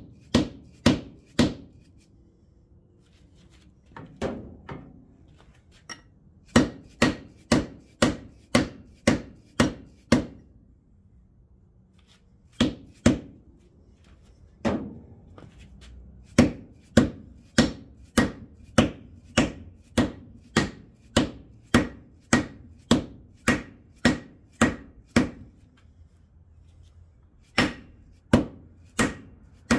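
A hammer striking a socket used as a driver, tapping a new freeze plug into the bore of a Jeep 4.0 cylinder head. The blows come in runs, about two a second, with short pauses between runs, as the plug is walked in until it sits flush.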